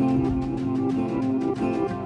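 Background music: acoustic guitar with sustained low notes and plucked notes in a steady rhythm.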